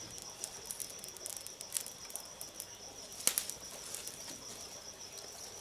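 Wood campfire crackling with scattered sharp pops, a louder pop about three seconds in, over a steady high-pitched insect drone.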